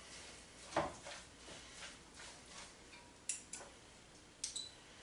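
A few light, scattered kitchen clicks and taps of utensils against cookware: a soft knock about a second in, then small sharp clicks and a brief clink near the end.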